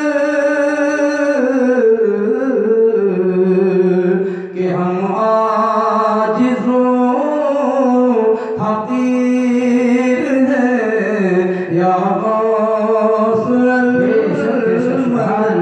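A man singing a naat (Urdu devotional song) in long held, gliding melodic lines.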